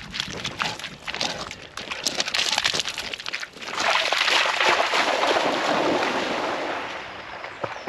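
English springer spaniels splashing through shallow lake water: short quick splashes and patters at first, then, about halfway through, a long loud rush of splashing as they bound out into the lake, fading near the end.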